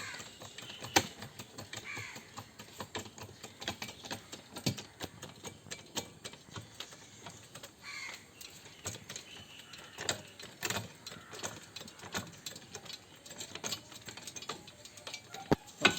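Hand-pumped hydraulic coil spring compressor at work on a heavy coil spring: irregular mechanical clicks and knocks, a few a second, as the lever is pumped and the clamps bear down.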